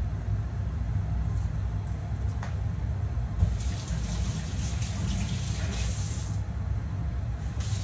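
Water running in two spells, the first starting about three and a half seconds in and stopping a little after six seconds, the second starting near the end, over a steady low rumble. A single light click comes a little before the water.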